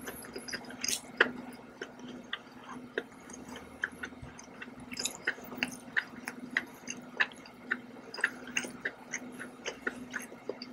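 Close-miked wet chewing of soft scallops in sauce, with many small irregular mouth clicks and smacks, several a second.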